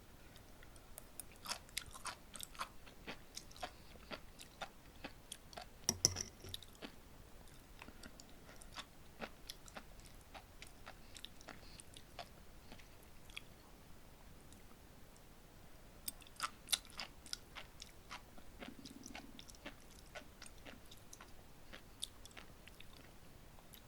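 Close-miked chewing of sea grapes: the tiny seaweed beads burst as crisp little pops and clicks that come in clusters, with quieter stretches between bites.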